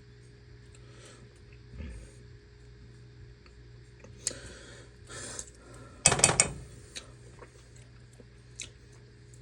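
Kitchen utensils clinking and clattering against dishes and a pot while ingredients are measured and added, with a quick cluster of sharp clinks about six seconds in, over a steady low hum.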